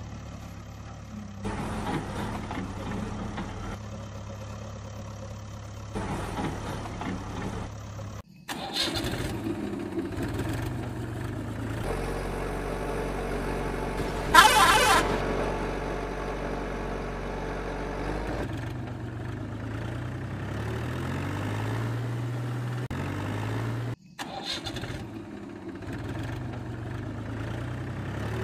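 A truck engine running steadily, with its pitch stepping up and down in places. The sound breaks off sharply twice, about a third of the way in and again near the end, and starts up again each time. About halfway there is a short, loud burst that is the loudest sound.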